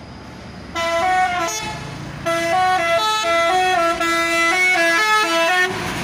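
An Indonesian intercity bus's multi-tone musical "telolet" horn playing a short tune of stepping notes: a brief phrase about a second in, a short pause, then a longer run that stops just before the end. The bus's engine runs underneath.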